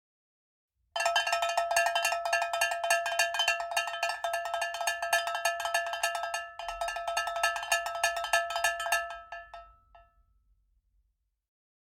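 A fast, continuous run of ringing metallic strikes, like a small bell or cowbell being shaken or struck rapidly. It starts abruptly about a second in, breaks briefly past the middle, then thins out and dies away near the end.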